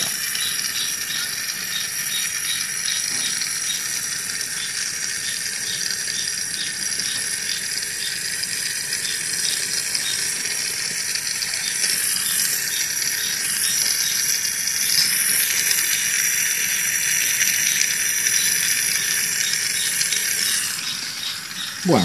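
Small oxy-gas brazing torch flame hissing steadily while a copper tube joint on a refrigerator compressor is brazed with silver-alloy rod and flux. A light, even ticking runs through about the first half.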